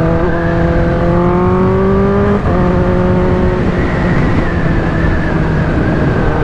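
Kawasaki ZX-10R inline-four engine under way: it climbs steadily in pitch as the bike accelerates, drops sharply about two and a half seconds in at an upshift, then holds a steady cruising note, with a constant rushing noise underneath.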